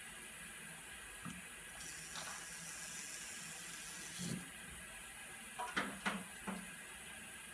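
Hot deionized water running from a hose into a glass filter crucible, a steady hiss lasting about two and a half seconds, as the fibre sample is rinsed. A few short knocks follow about six seconds in.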